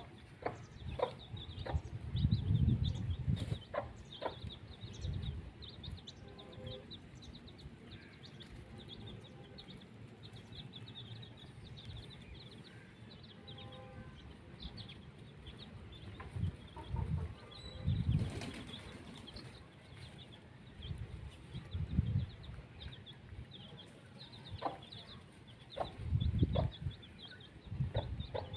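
Domestic chickens clucking now and then, with a few low thuds and flutters, over a steady chatter of small high chirps.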